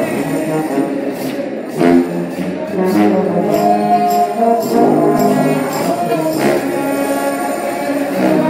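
Gospel music performance: voices singing held notes over instrumental backing, with several sharp percussion hits.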